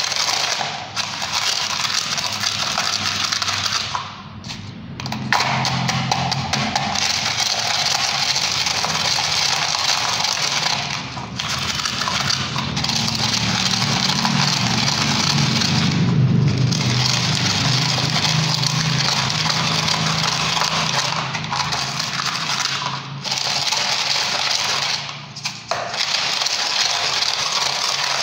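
Eggshells being crushed and ground in a plastic cup with a wooden stick: a continuous gritty crunching and scraping, broken by a few short pauses.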